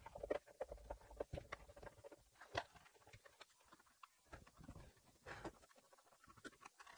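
Faint, scattered knocks and scrapes from the wooden cabinet of a Telefunken Operette 6 tube radio being turned and tilted on a desk. The sharpest knock comes about two and a half seconds in, and a few more come a little past five seconds.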